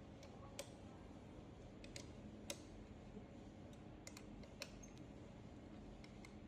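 Faint, irregular metal clicks and taps from a hand wrench working the welding head's screws tight.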